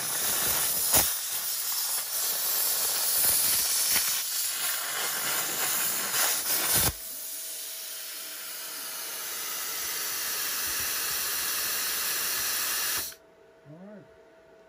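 Hynade CUT60DN plasma cutter torch cutting 3 mm cold-rolled steel: a loud, steady hiss with occasional crackles. The cutting arc stops about seven seconds in, and a quieter air hiss carries on, the torch's post-flow cooling air, until it cuts off suddenly about thirteen seconds in.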